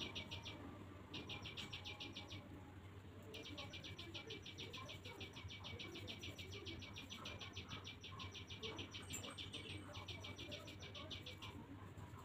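Rapid, evenly spaced high-pitched chirping, about ten chirps a second, in runs of one to several seconds broken by short pauses, over a low steady hum.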